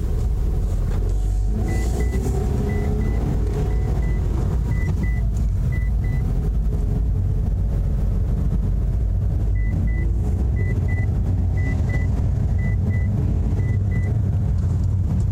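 2008 Mitsubishi Eclipse driving in gear, heard from inside the cabin: steady engine and road rumble with a rapid banging from the drivetrain that comes with the clutch engaged and grows with engine speed. A high double beep repeats about once a second for a few seconds, twice.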